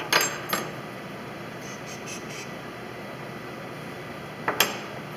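Small brass hinges clinking as they are set down on a varnished wooden deck: two sharp clinks just after the start, a few faint ticks, then a louder clink near the end, each with a brief metallic ring, over a steady background hiss.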